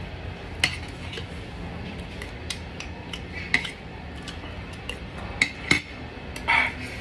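Light clicks and clinks of a plate and eating utensils as a meal of grilled fish is picked at by hand, half a dozen scattered taps with a slightly longer, louder noise near the end.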